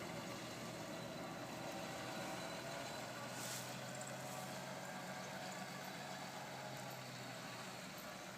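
Snow plow truck's engine running steadily, heard faintly, with a low hum that drops away about seven seconds in. A brief hiss sounds about three and a half seconds in.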